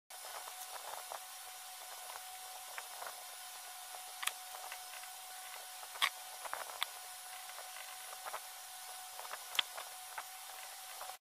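Small clicks and taps of a metal hard-drive caddy being fitted onto a laptop hard drive, the sharpest ticks about four, six and nine and a half seconds in, over a steady hiss with a faint steady whine.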